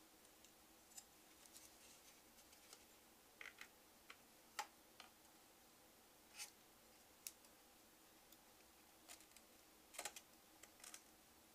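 Near silence with sparse faint clicks and small taps: a CPU cooler backplate and its screws being fitted against the back of a motherboard.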